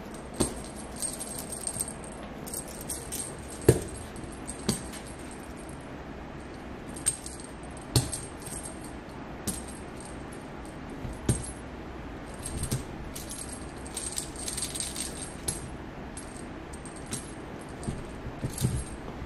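A cat toy rattling and jingling in short, scattered bursts as cats bat at it. Several soft thumps of cats jumping and landing come in between.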